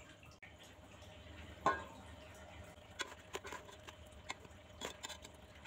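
Mostly quiet, with a few faint clicks and light scrapes of a spatula against the cooking pot as the boiled lentils and ash gourd are stirred, most of them in the second half.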